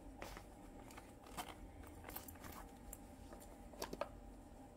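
Faint, scattered clicks and light rustles of small items being handled by hand over a low steady hum.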